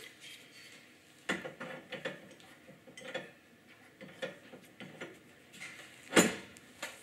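Large steel adjustable wrench clinking and knocking against a Rotolock refrigeration service valve held in a metal vise as it is adjusted and fitted onto the valve's tightly seized stem, with a sharp metal clank about six seconds in.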